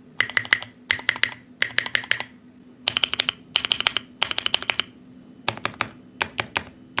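Typing on a computer keyboard: quick runs of sharp key clicks, each about half a second long, with brief pauses between them. The clicks in the first few runs are lower in pitch than those in the runs that follow.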